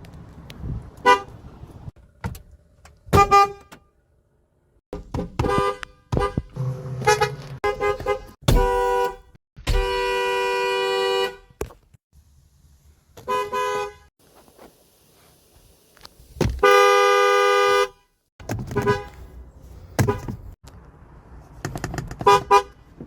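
Pickup truck horns honking: a string of short taps and quick double toots, with two long steady blasts of a second and a half to two seconds, one near the middle and one about three-quarters of the way through.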